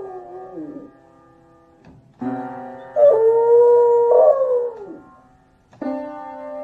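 A beagle howling along to an electronic keyboard that it plays with its front paws. A howl falls away at the start. About two seconds in the dog presses a held chord, and about a second later it howls a long, wavering note over it that slides down and dies out near five seconds. Near the end it presses another chord.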